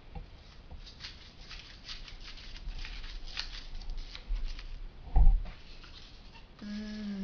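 Folded origami paper rustling and crinkling as it is handled, in many small crackles. A single dull thump about five seconds in, and a person starts humming a low steady note near the end.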